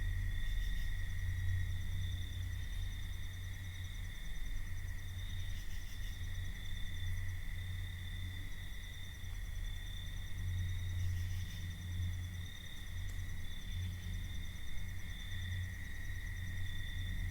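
Crickets trilling steadily, over a continuous low rumble.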